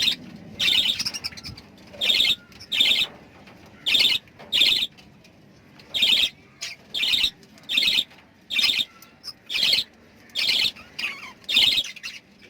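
Pet lovebirds calling: a steady series of short, high-pitched chirps, roughly one or two a second.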